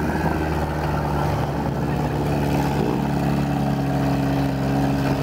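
Demolition derby car engines running under load, a steady engine drone held at high revs as the cars push against each other.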